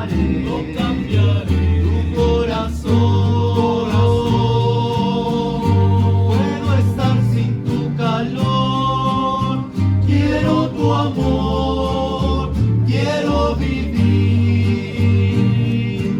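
A rondalla playing: acoustic guitars strummed over a bass line that steps from note to note, with voices singing together.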